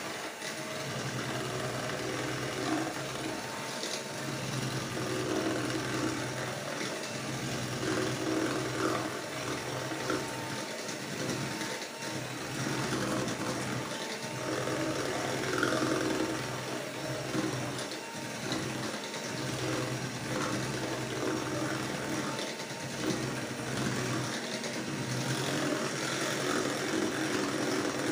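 Hand-held electric mixer running steadily, its beaters whisking runny cheesecake batter in a stainless steel bowl.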